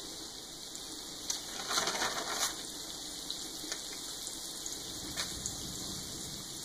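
Steady sizzle of frying oil, with a brief crackly rustle of flour and paper as hands toss pieces of fish in flour, about two seconds in.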